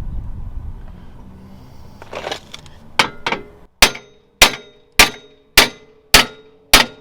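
A hammer striking steel in a steady series of hard blows, about one every 0.6 seconds from about three seconds in, each leaving a short metallic ring. A low rumble and a scrape come before the blows.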